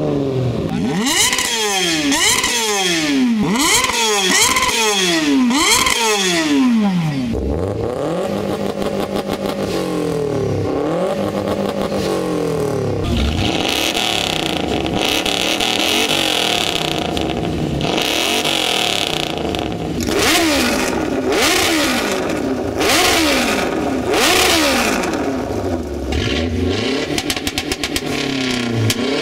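Car engines revved hard one after another, each held stationary. A Chrysler Crossfire's V6 is blipped up and down about six times in quick succession. After a change at about seven seconds, a third-generation Chevrolet Camaro revs in longer, slower pulls.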